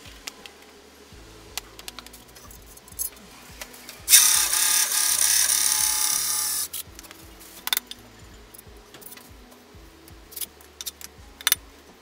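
Cordless drill boring a hole through a binder mounting plate: the motor whines steadily for about two and a half seconds, starting about four seconds in. Scattered clicks and knocks of handling the drill and plate come before and after it.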